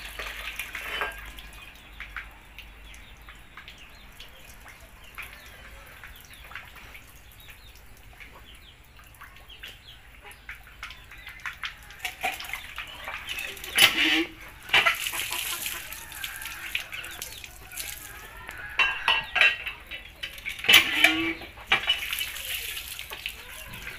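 Rooster pecking cooked rice from a clay dish: many light ticks of the beak on the dish, with a few louder short noises about halfway through and again near the end.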